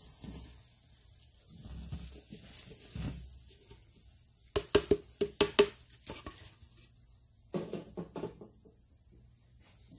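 Gloved hand tapping an upturned plastic cup to knock cleaning powder out onto a wet, foamy paste: a quick run of about six sharp taps halfway through, and a few more near the end. Soft wet handling sounds come before the taps.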